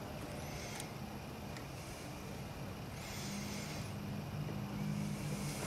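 Low hum of a motor vehicle's engine, faint at first and stronger from about halfway through, with a few faint small clicks from pliers working a plastic quick-splice connector.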